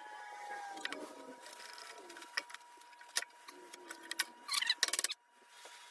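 Hand tools scraping and tapping on metal while working the PTO shaft loose on a John Deere 1020 tractor: scattered light clicks and scrapes, with a quick run of clicks near the end.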